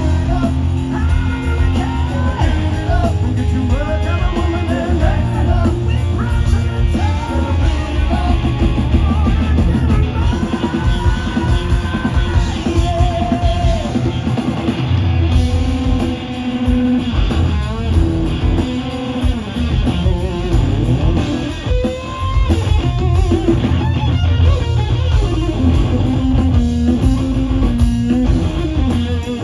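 Hard rock band playing live: loud electric guitar over bass and drums.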